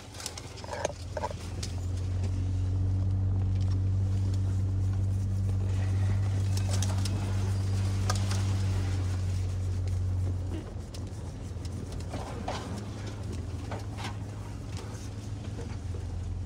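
A 4x4 truck's engine running at a steady low drone while crawling along a rough dirt trail, its hum dropping somewhat about ten seconds in, with scattered short clicks and knocks.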